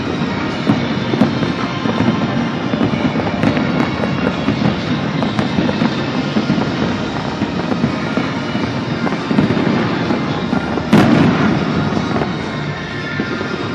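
Fireworks going off in quick succession with dense crackling, and one louder bang about eleven seconds in.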